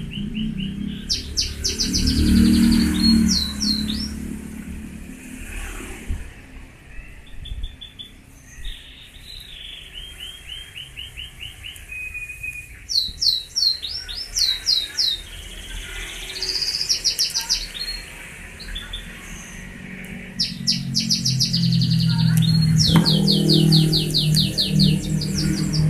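Birds chirping in repeated quick runs of high, falling notes. A low drone swells briefly about two seconds in and again, louder, near the end.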